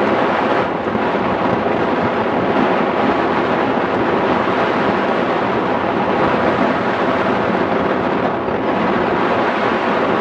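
Steady, loud rush of airflow buffeting the microphone of a camera mounted on a hang glider in flight.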